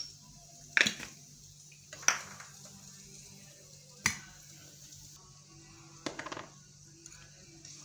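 A metal spoon and a non-stick frying pan clinking together in four sharp knocks a second or two apart, each with a short metallic ring; the last is a quick rattle of several knocks. A faint steady low hum runs underneath.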